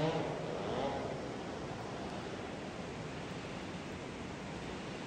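Steady, even outdoor hiss, a broad rushing noise such as wind or distant running water. A wavering pitched sound fades out about a second in.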